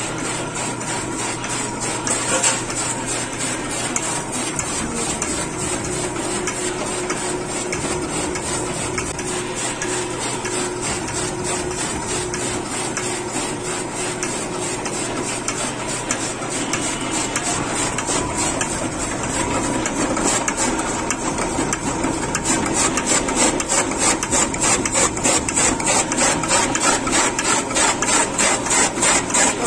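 Belt-driven forage chopper (picadeira) running, its overhead shafting and flat belts clattering while the knives chop green fodder. A regular knocking beat, about two a second, grows louder in the last third.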